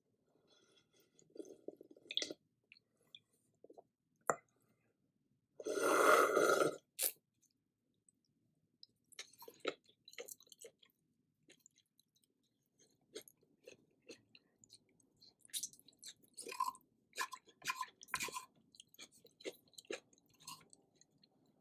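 Close-miked eating of spicy seafood noodle soup: soft chewing and wet mouth clicks, with one loud slurp of about a second some six seconds in.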